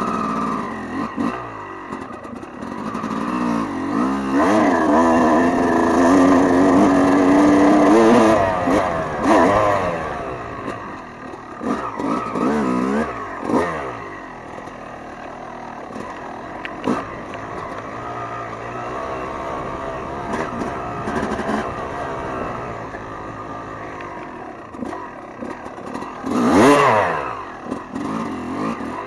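Dirt bike engine running under the rider's throttle, its pitch rising and falling. It pulls hard for several seconds early on, then blips up and down, with one sharp rev near the end.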